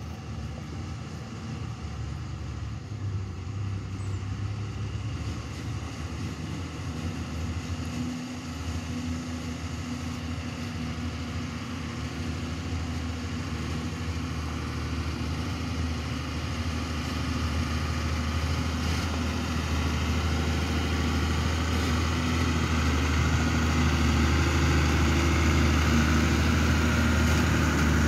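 Ford Cargo water tanker truck's diesel engine running as the truck drives slowly closer, growing steadily louder. Near the end the hiss of water spraying from its rear spray bar onto the dirt road joins in.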